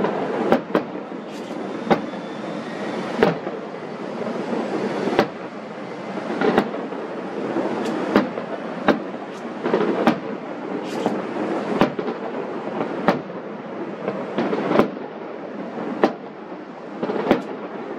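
Aerial fireworks shells bursting at a distance, a sharp bang about every second, over a continuous rumble between the bangs.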